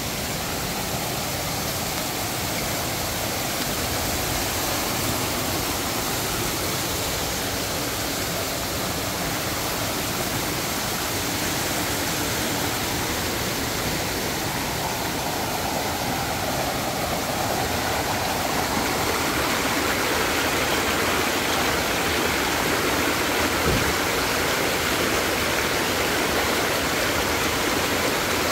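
Water of a small rocky forest stream rushing over stones and little cascades: a steady rushing that grows a little louder in the second half.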